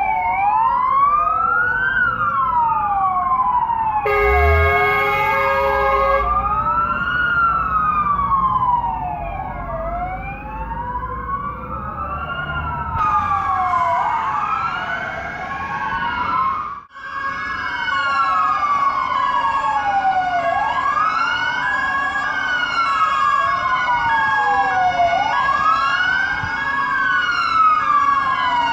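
Several fire engines' sirens wailing at once, overlapping and out of step, each rising and falling over a second or two. About four seconds in, a blast of air horns sounds for about two seconds over a truck's diesel engine revving.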